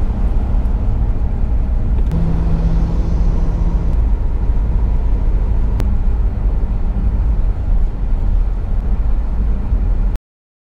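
Steady low rumble of a car driving at road speed, engine and tyre noise heard from inside the cabin; it cuts off suddenly about ten seconds in.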